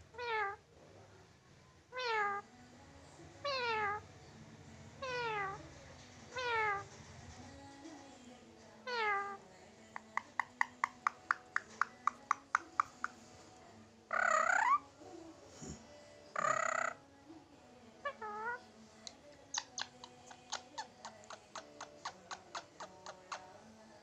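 Indian ringneck parakeet mimicking a cat's meow: a string of falling meows about every second and a half, then a fast run of clicks, a few louder calls, and more rapid clicking near the end.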